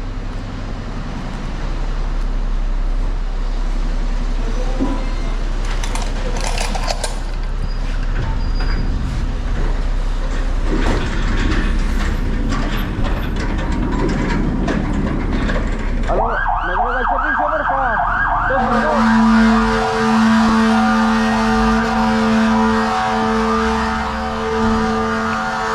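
A fire engine's electronic siren switches on about two-thirds of the way in, warbling fast, and a steady low tone joins it a couple of seconds later. Before that there are knocks and clatter over a low engine rumble.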